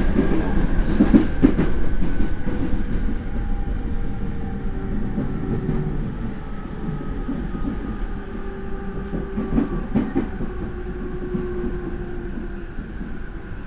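JR E231-500 series electric train's Mitsubishi IGBT inverter and traction motors whining as the train brakes to a stop: several tones glide slowly down in pitch and the sound fades. Wheels click over rail joints or points a few times, once near the start and again later. The motor sound is loud, and the uploader finds it slightly abnormal.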